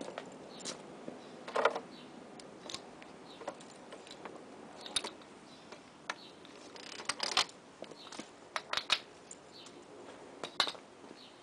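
Irregular clicks, taps and brief scraping or rustling sounds of things being handled by hand, with a denser cluster a little past halfway.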